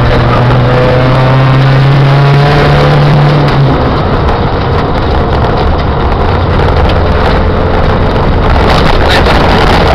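Car engine heard from inside the cabin, accelerating with its note rising steadily, then dropping away about three and a half seconds in. A steady low rumble with road noise follows.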